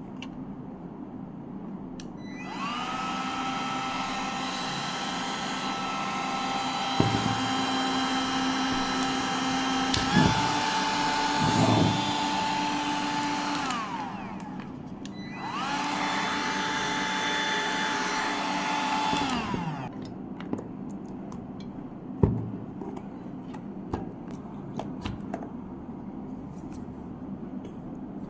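Hot air gun's blower motor switched on: it spins up to a steady whine over rushing air, steps up a little in pitch about ten seconds in, then is switched off and winds down. It runs again for about four seconds before winding down once more, with a few sharp clicks around the runs.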